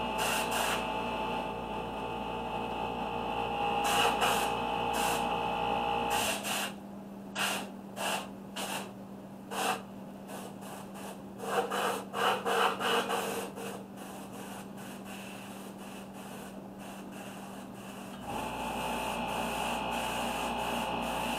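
A cloth rubbing and dabbing against a painted tumbler cup in short scratchy bursts, over a steady electrical hum with several fixed tones. The hum drops out a few seconds in and returns a few seconds before the end.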